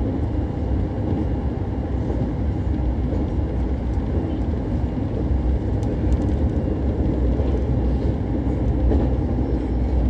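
Nankai 8000-series electric train running on the rails, heard from inside the front car: a steady low rumble of wheels on track, with a few faint clicks.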